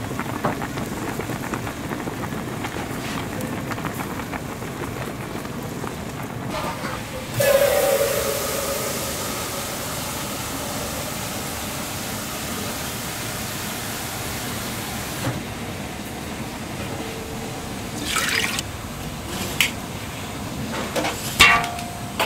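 Pot of instant ramyun boiling hard on a burner, bubbling steadily. About seven seconds in, a loud hiss starts abruptly and cuts off about eight seconds later. Near the end come a few sharp clinks with a short ring.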